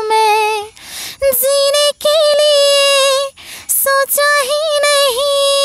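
A woman singing solo in Hindi, holding long notes with vibrato, with audible breaths between phrases.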